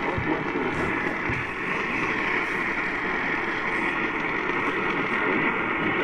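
AM radio tuned to 820 kHz playing through its small speaker: a steady hiss of static over the broadcast, with no high treble.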